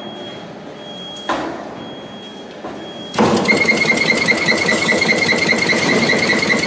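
Automatic steel belt welding machine for glass lids running its cycle: a sharp clunk about a second in, then, about three seconds in, a loud rapid ticking with a steady high whine starts and keeps going.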